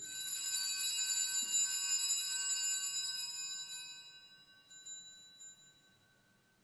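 Altar bell rung at the elevation of the consecrated host, ringing with several high tones that slowly die away over about four seconds, then two lighter rings a little before the end.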